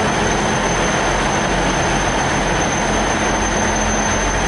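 Stationary passenger train's engine running beside the platform: a loud, steady drone with a low hum underneath.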